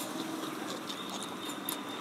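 Noodles being slurped and chewed, with small wet mouth clicks.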